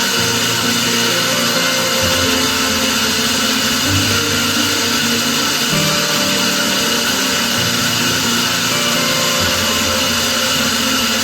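A power tool running steadily, mixed with background music whose low notes change every couple of seconds.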